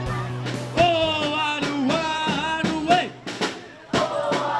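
A song playing: a singing voice over a drum beat, the voice coming in about a second in.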